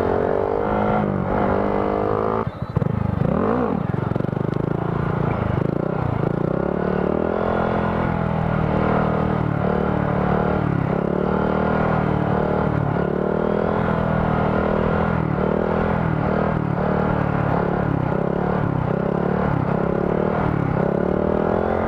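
Honda Grom's small single-cylinder engine revving up and falling back over and over, as the throttle is worked during wheelie practice.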